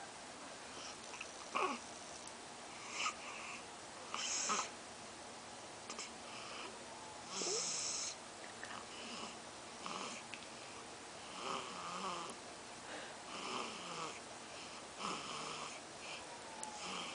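Baby snoring while drinking: a string of short, wheezy snoring breaths, roughly one every second or two, with faint squeaky sounds between some of them.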